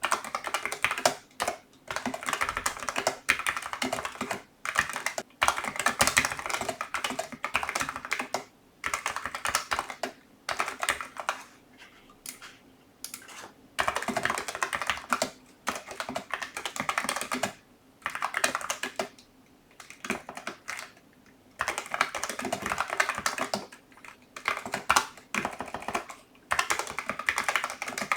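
Typing on a Logitech MX Mechanical Mini keyboard with tactile brown mechanical switches: rapid runs of keystroke clicks in bursts of a second or two, with short pauses between them.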